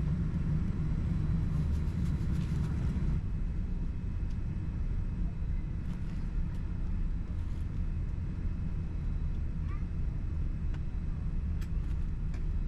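Boeing 787-10 airliner taxiing, heard from inside the economy cabin: a steady, low rumble of the jet engines and airframe, with a few faint clicks from cabin fittings.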